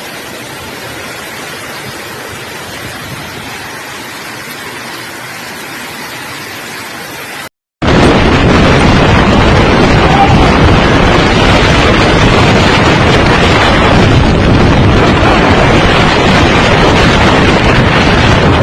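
A steady rushing hiss, then an abrupt cut a little under 8 s in to much louder, rough wind noise buffeting the microphone.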